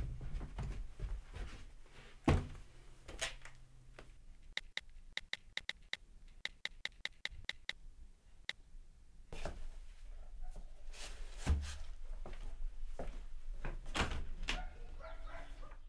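Footsteps and thumps in a small room, then a quick run of smartphone keyboard clicks, about four a second for some three seconds. More thumps follow near the end.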